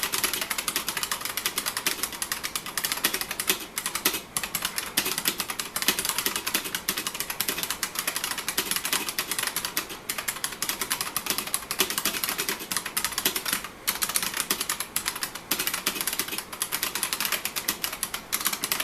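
IBM Model M2 buckling-spring keyboard being typed on quickly: a rapid, continuous stream of key clicks, broken by a few short pauses.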